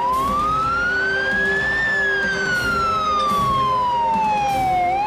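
Ambulance siren in a slow wail: the pitch rises over about two seconds, falls over about three, and starts to climb again near the end.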